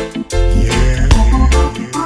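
Reggae music playing in an instrumental stretch: deep bass notes, held keyboard chords and regular drum hits, with no singing.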